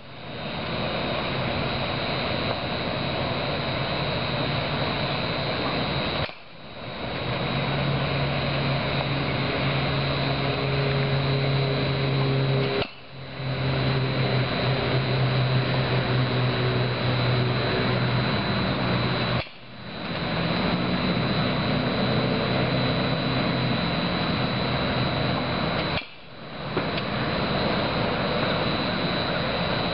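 Steady mechanical hum and rushing noise with a faint low drone. It drops out briefly and fades back in about every six and a half seconds.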